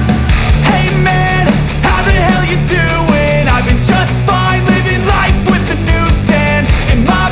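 Loud background rock music, punk or grunge in style, with driving drums and a melodic lead that may be singing.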